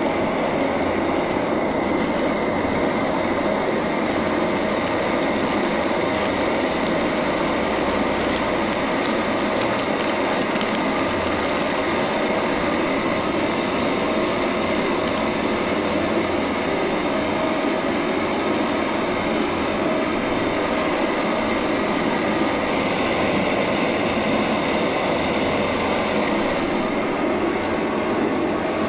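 Camping stove burner running under a pot of water and rice being brought to the boil, a loud, constant rushing hiss with no break.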